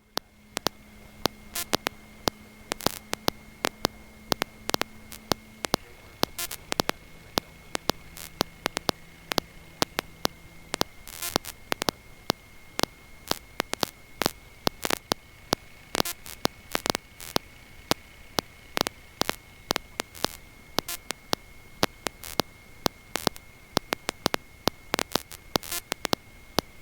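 Electrical static on an audio line: irregular sharp crackles and clicks over a low hiss, with a steady thin high-pitched whine. A faint low hum is there for the first several seconds and changes pitch about six seconds in.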